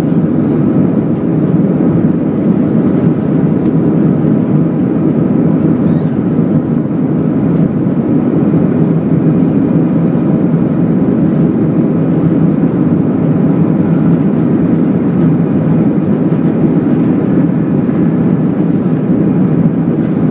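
Steady, loud rush of an Airbus A319's jet engines and runway rumble heard from inside the passenger cabin as the airliner rolls along the runway.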